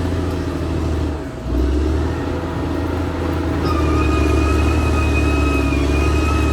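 Caterpillar D6R XL bulldozer's diesel engine running steadily, dipping briefly a little over a second in. From about halfway, a steady high whine sits on top of the engine.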